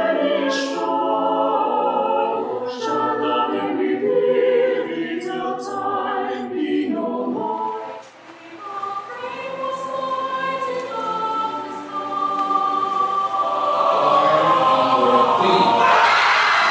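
Mixed choir singing in sustained chords; about 8 s in the sound dips sharply and another choral recording takes over. Near the end a loud rush of noise rises over the singing.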